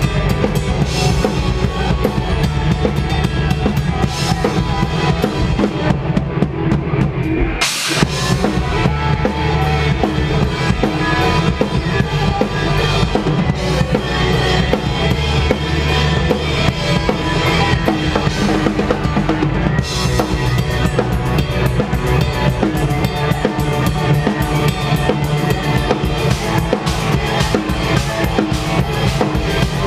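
A post-hardcore band playing loud, with a pounding drum kit of bass drum, snare and cymbals. About eight seconds in the band stops for a moment, then crashes back in together.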